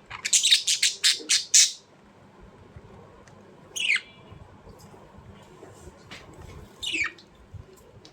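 Birds chirping: a fast run of about eight sharp, high chirps in the first second and a half, then two single calls sliding sharply down in pitch, about four and seven seconds in.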